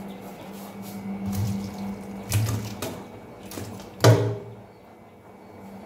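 Boiled taro being drained into a colander in a kitchen sink: hot cooking water pouring and splashing down the drain in several surges, with a loud metallic clank of the pot about four seconds in.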